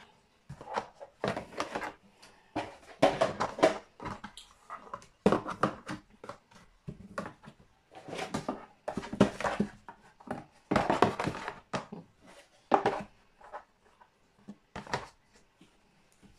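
Plastic drawer organizer trays being lifted, slid and set down in a kitchen drawer: a string of irregular knocks and clatters.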